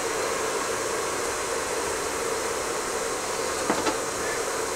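Steady whir and hiss of a running kitchen appliance's fan, with a constant hum, and a light click about three and a half seconds in.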